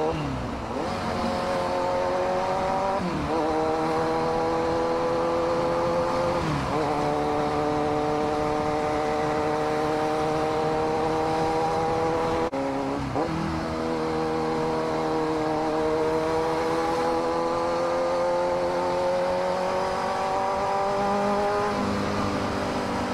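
Kawasaki Z900 inline-four engine accelerating through the gears from the rider's seat, with wind noise over it. Its pitch climbs slowly, dropping with an upshift just after the start, about three and six and a half seconds in, and again around thirteen seconds, then keeps rising steadily.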